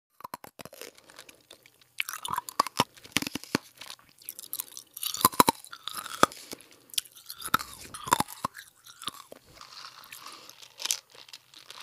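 A dog eating noisily: irregular wet chewing and crunching, with louder clusters about two, five and eight seconds in.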